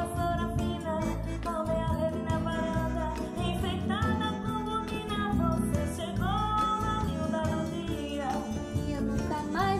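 Music: a break between sung verses of a Brazilian song, with plucked guitar, bass and percussion keeping a steady beat and a melody that slides between notes.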